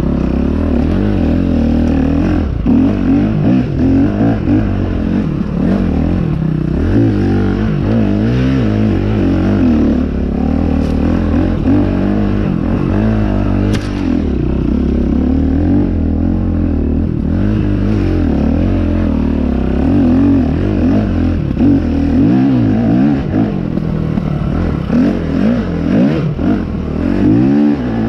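Dirt bike engine under load while being ridden, revving up and falling off again and again with the throttle.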